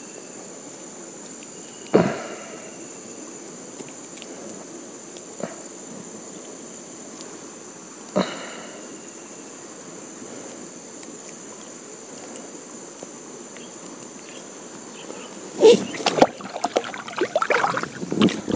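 River ambience: moving water and a steady high insect drone. Two sharp knocks come about six seconds apart, then a run of splashes and knocks near the end.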